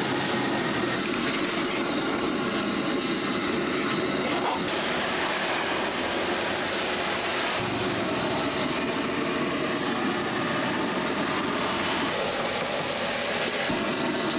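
A steady, loud roar of a gas stove burner under a wok, with food frying.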